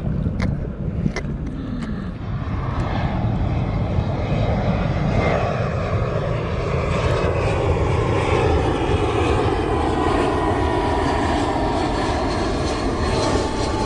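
A jet airliner passing low overhead: a loud engine rush that builds about two seconds in and holds, with a thin whine slowly falling in pitch.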